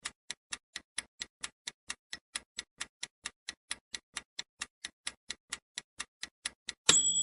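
Countdown-timer clock sound effect ticking fast and evenly, about four or five ticks a second. Near the end a sudden, loud, bright bell-like ding sounds and rings on: the answer time is up.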